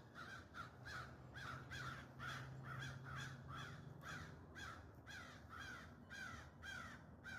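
Crows cawing without pause, short harsh caws two or three a second from several birds overlapping, faint and distant. These are alarm calls, the crows mobbing a perched eagle or hawk.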